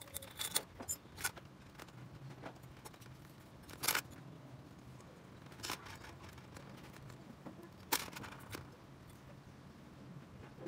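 Small metal carburetor parts and tools clicking and clinking against a stainless steel tray and parts bowl. A quick run of light clicks comes in the first second or so, then single sharp clicks a couple of seconds apart.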